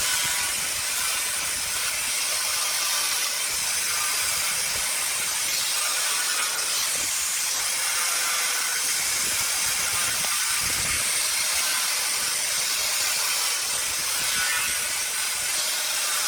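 Wood lathe spinning a wooden workpiece while a turning tool or abrasive works the surface, a steady hissing shear with a faint low knock about ten seconds in.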